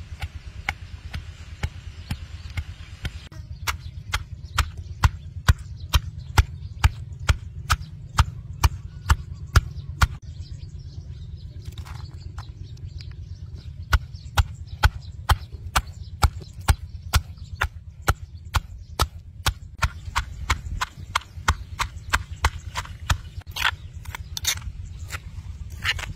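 Stone pestle pounding fresh red chilies in a stone mortar, a steady beat of about three strikes a second. There is a brief lull about halfway before the pounding starts again.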